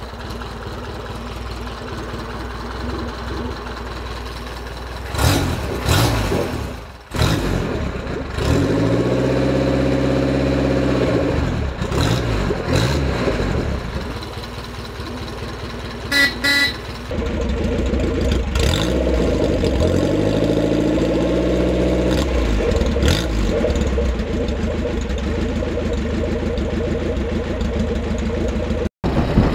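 1938 Indian Four's air-cooled inline four-cylinder engine running at idle after a warm kick start. It is revved up and back down twice, about 9 seconds in and again about 18 seconds in. About 16 seconds in the horn gives two short toots.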